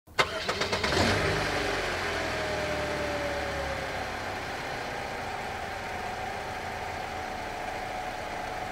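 A car engine running steadily at idle, with a few sharp knocks in the first second.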